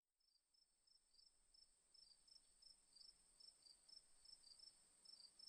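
Faint crickets chirping in a night ambience: a steady high trill with regular short chirps about three a second, slowly fading in.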